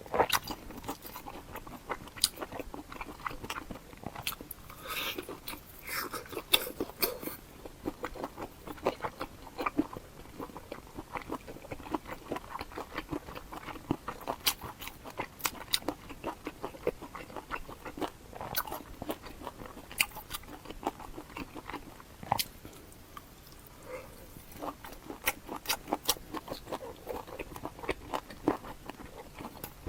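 Close-miked mouth sounds of a person eating: biting and chewing crunchy food, a dense, irregular run of sharp crackles and clicks.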